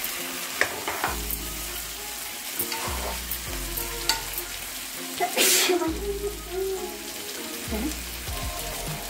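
Masala-coated fish pieces sizzling in hot oil in a frying pan, stirred gently with a spoon that clicks and scrapes against the pan. A brighter, louder burst of sizzle comes about five seconds in.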